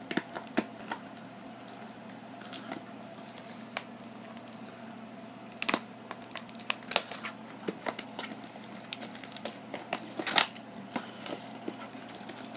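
Plastic wrapping on a trading-card booster box crinkling and crackling in scattered bursts as it is handled and peeled off, with sharp ticks here and there, busiest a little past halfway and once more near the end.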